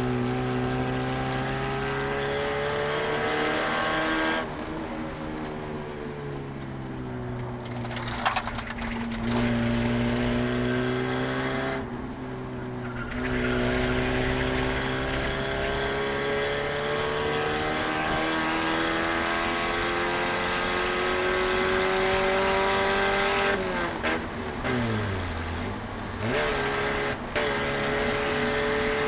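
Eagle Talon's four-cylinder engine under hard acceleration, heard from inside the cabin. The note climbs slowly through long pulls and drops sharply three times as the driver lifts or changes gear, with a steeply falling note near the end.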